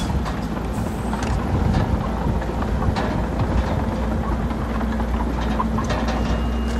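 Heavy-equipment diesel engine running steadily, with scattered clanks and knocks over it. A faint high tone comes in near the end.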